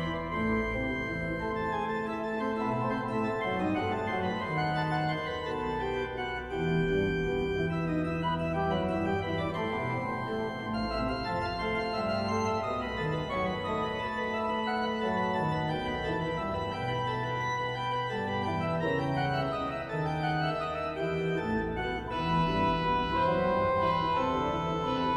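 Organ music: slow, sustained chords with notes held for a second or more and changing gradually.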